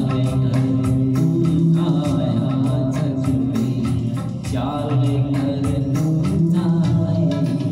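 A man singing a Hindi song into a handheld microphone over backing music of electronic organ with a steady beat.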